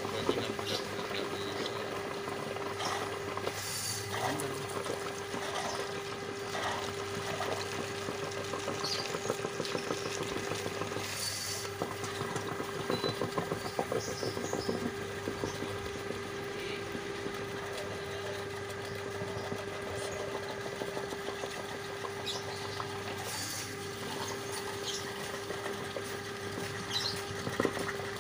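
Electric drain-cleaning machine running, its spiral cable turning in a clogged, water-filled drain. A steady motor hum that breaks off briefly a few times, over water noise and scattered knocks from the cable.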